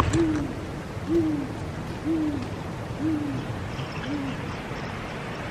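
Female great gray owl giving its territorial call: a series of five deep, evenly spaced hoots about one a second, each dropping slightly in pitch, the last one shorter. She is presumably calling for her mate.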